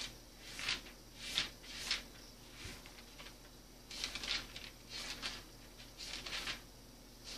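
Pages of a Bible being turned by hand: a series of soft, short paper rustles, a few a second, with brief pauses between them.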